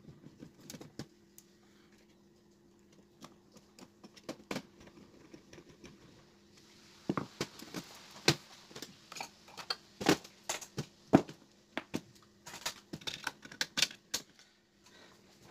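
Irregular clicks and taps of hand tools and cable connectors being handled and fitted on a TV's metal back panel and circuit board, sparse at first and coming thick and fast in the second half, over a faint steady hum.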